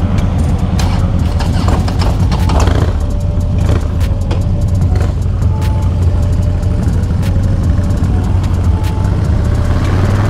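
Harley-Davidson Dyna's air-cooled V-twin engine running steadily under way, a low, even throb with short clicks and rattles over it.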